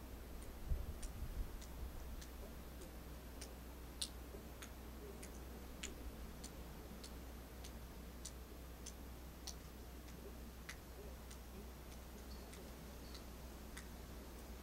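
Faint, fairly regular ticking, a little under two ticks a second, over a steady low rumble, with a few low thumps in the first two seconds.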